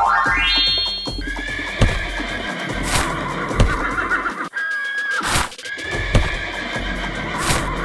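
Background music that opens with a quick rising sweep, followed by a repeating warbling melody line and sharp clicks every second or so.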